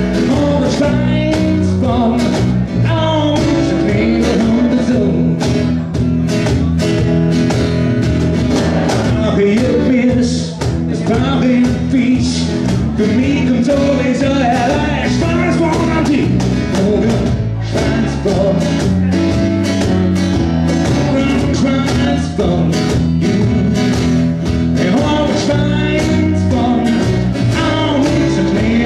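Small acoustic rock band playing live: strummed acoustic guitars, electric bass and a cajón beat, with a lead vocal.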